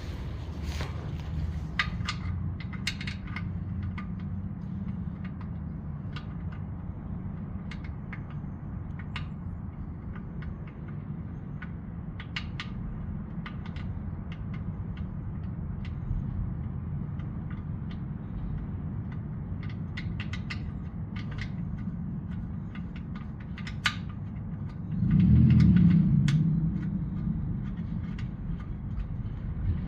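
Scattered light clicks and clinks of tools and parts being handled while working under a truck, over a steady low rumble. About 25 seconds in, a louder low rumble swells for a second or two, then fades.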